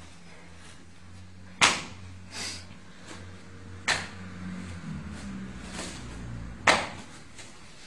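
Three sharp slapping impacts, about two to three seconds apart, from jiu-jitsu partners working a standing technique on a mat, with softer rustles between them over a steady low hum.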